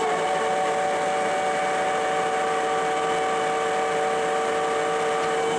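Lucas 42B-120 horizontal boring mill running: a steady machine whine with two clear, unchanging tones over a noisy hum.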